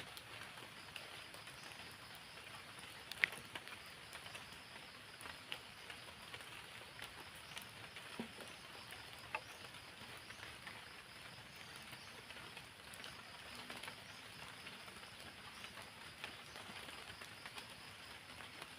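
Steady light rain, with scattered sharp drips ticking, one louder tick about three seconds in.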